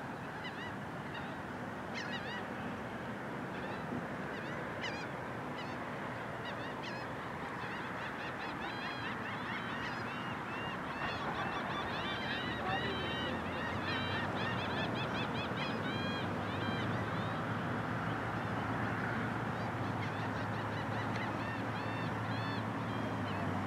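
Many birds calling over a steady background hiss, with short, rapidly repeated rising-and-falling calls that come thickest in the middle. A low steady hum joins about halfway through.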